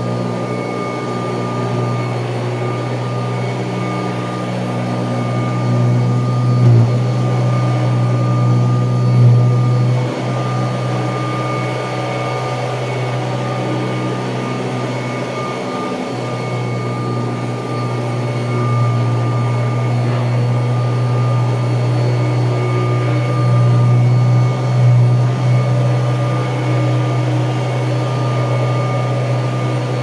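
1979 Kirby Tradition upright vacuum cleaner running steadily while being pushed back and forth over carpet: a steady low hum with a thin high whine above it, with a few faint knocks as it moves.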